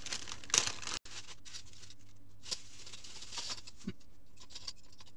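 A plastic bag crinkling as it is torn open, then scattered light clicks and taps of small plastic speedcube pieces tipped out and handled on a cloth-covered table.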